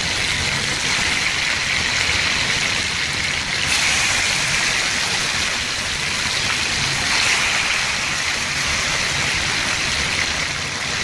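Marinated chicken breasts sizzling as they fry in hot oil in a pan, a steady hiss that swells about four seconds in and again around seven seconds as more pieces go into the oil.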